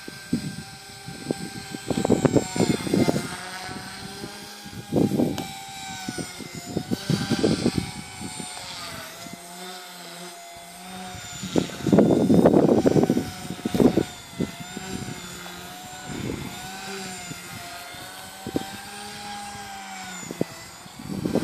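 Electric Align T-Rex 150 micro helicopter flying at a distance: a thin motor-and-rotor whine that wavers up and down in pitch as it manoeuvres. Several loud bursts of wind rumble on the microphone come and go over it.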